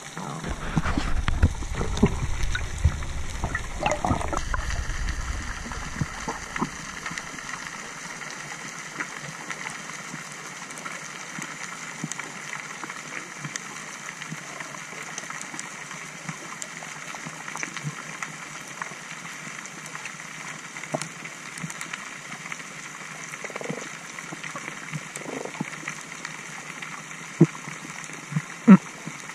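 Underwater ambience picked up by a camera in its housing. A low rushing rumble of moving water dies away about six or seven seconds in, leaving a steady hiss with scattered faint clicks and a couple of sharp knocks near the end.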